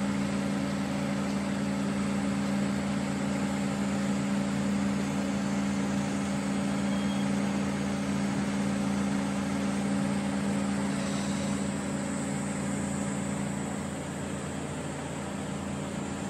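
A steady mechanical hum with a constant pitch, which starts abruptly and eases slightly near the end.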